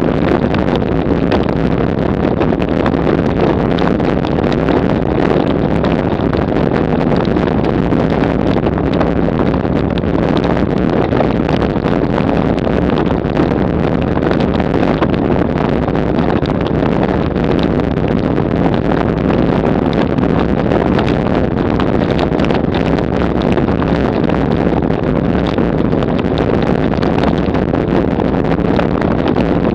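Bicycle rattling and juddering continuously over rough cobblestones at about 30 km/h, a dense steady clatter heard through a camera mounted on the bike.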